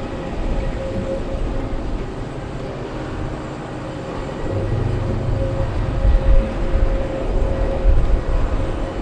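Steady drone of a jet airliner, with a held mid-pitched tone over the noise. About halfway through, an uneven low rumble swells in and becomes the loudest part.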